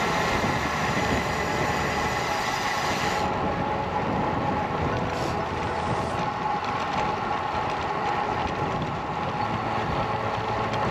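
Wind rushing over the microphone of a moving bicycle-mounted camera, mixed with steady tyre and road noise from riding along a paved path.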